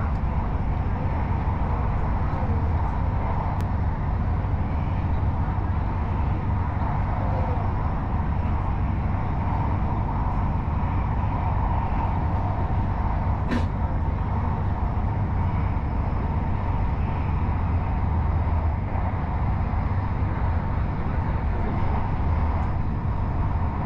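Steady running noise heard inside a moving electric commuter train on the Bangkok Airport Rail Link: a low rumble from the wheels and running gear with a faint steady whine. A single sharp click comes about halfway through.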